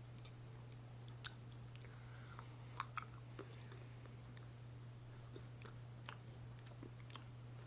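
Faint chewing of a piece of candy, with scattered soft mouth clicks and two sharper ones about three seconds in, over a steady low hum.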